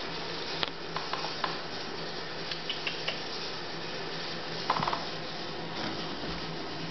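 Kittens' claws scratching and scrabbling on a cardboard box: a few light scratchy clicks, then a quick rattle of them about five seconds in, over a steady hiss and faint hum.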